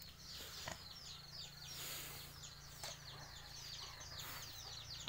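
Many small birds chirping: a rapid, overlapping run of high, downward-slurred chirps over a steady low hum. Two brief rustles of leaves brushing past come about two seconds in and again near the end.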